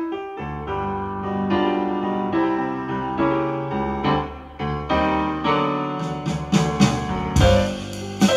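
Restored vintage Bozak B-302A loudspeaker playing piano music, recorded in the room, with sharper, brighter note attacks in the second half.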